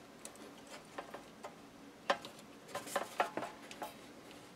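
Light clicks and knocks from handling a disassembled toaster's stainless-steel shell and internal parts, with a sharper tap about two seconds in and a few more around three seconds in.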